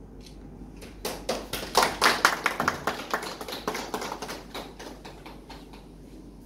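A small group of people applauding by hand, the separate claps easy to pick out. The clapping starts about a second in, is loudest soon after, then thins out and dies away near the end.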